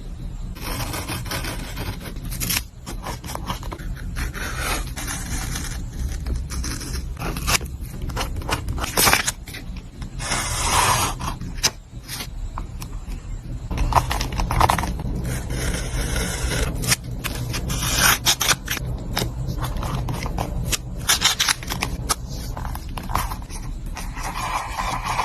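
Close-miked paper and stationery handling: repeated scraping and rubbing of paper, broken by sharp clicks and taps.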